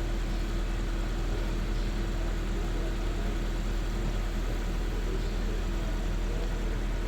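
Honda Fit petrol engine idling steadily, a constant low hum with an even tone over it.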